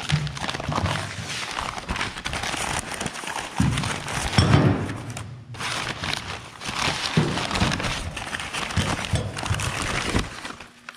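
Packing material in a parts box rustling and crinkling as it is rummaged through, with a few knocks of heavy steel suspension brackets being handled.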